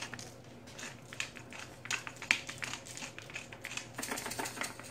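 Hand-twisted pepper mill grinding peppercorns: a run of small, irregular crunching clicks, busiest near the end.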